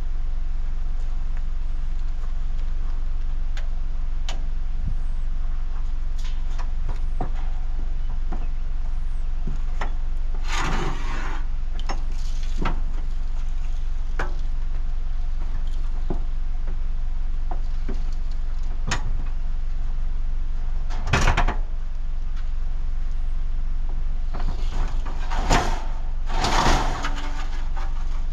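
A steady low engine drone with several clunks and rattles on top, the loudest a sharp knock about two-thirds of the way through and a cluster of clatters near the end.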